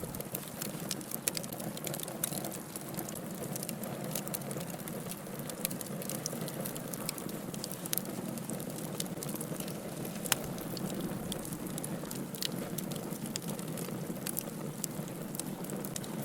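Wood fire burning: a steady hiss with frequent sharp crackles and pops, one louder pop about ten seconds in.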